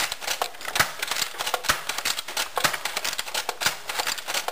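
Nerf blaster firing in a Nerf battle: sharp plastic clicks and clacks, a strong one about once a second with lighter clatter between.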